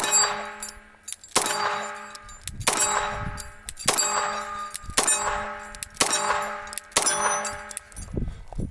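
Seven pistol shots about a second apart, each followed by the ringing of a struck steel plate target.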